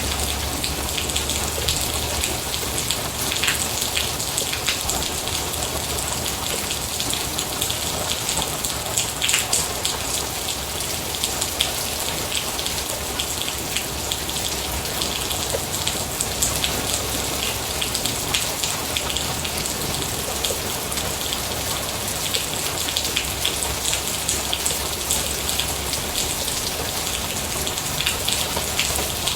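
Steady rain falling on a surface, a dense even hiss with many individual drops pattering through it.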